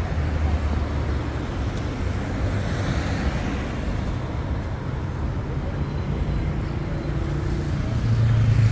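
Road traffic on a busy city street: a steady low rumble of car engines and tyres, swelling as a vehicle goes past about three seconds in and growing louder again near the end.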